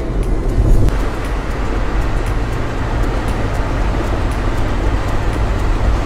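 Road noise of a Toyota HiAce camper van cruising at speed: a steady rush of tyre and wind noise over a low rumble, growing a little fuller about a second in.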